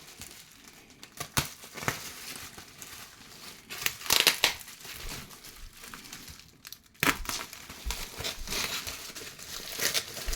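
Packing wrap crinkling and rustling by hand in irregular bursts as a boxed model is unwrapped, with the loudest handling about four seconds in and again about seven seconds in.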